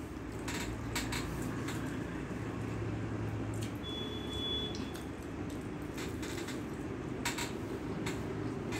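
Eating by hand: fingers mixing rice and dal on a steel plate and chewing, heard as scattered soft clicks over a steady low background hum.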